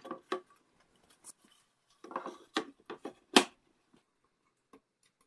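MDF spoil boards being slid and set down on a CNC router's aluminium-extrusion frame: a few scrapes and knocks, with a cluster about two seconds in and the loudest knock about three and a half seconds in.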